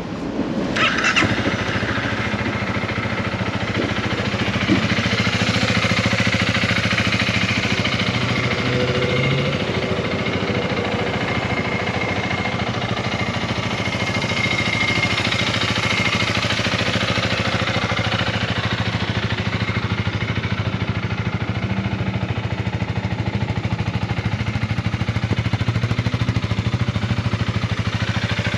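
Honda Rebel 300's single-cylinder engine starting about a second in, then idling steadily.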